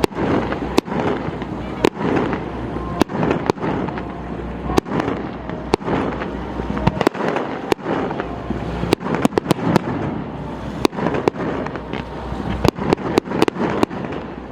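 Fireworks display: shells bursting with sharp bangs at irregular intervals, with quicker runs of crackling reports near the middle and toward the end.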